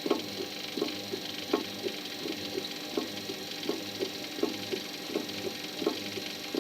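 Washing machine drum turning at low speed, with a dull knock repeating about every three-quarters of a second over a faint steady high squeak. Knocking and squeaking at low revs is the fault this machine shows.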